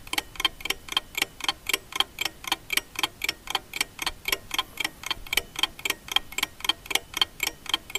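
Ticking-clock sound effect, fast and regular at about five ticks a second, laid over the footage as a time-passing cue.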